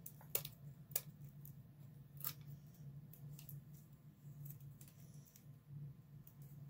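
Sharp clicks and snips of the packaging of a new Wet n Wild Color Icon blush being worked open by hand. The three loudest come about a third of a second, one second and two seconds in, with fainter ones after.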